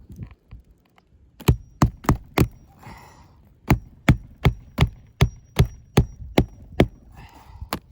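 Hammer blows on a shingle roof: a quick run of four sharp strikes, a short pause, then about ten more at a steady two to three a second.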